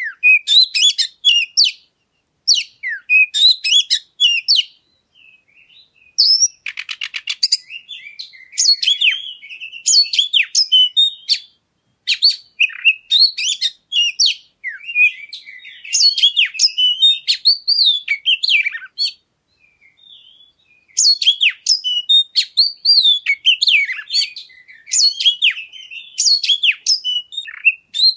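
Oriental magpie-robin (kacer) singing a loud, varied song of quick whistled and chirped phrases. There is a short buzzy rattle about six and a half seconds in, and brief pauses near six and twenty seconds.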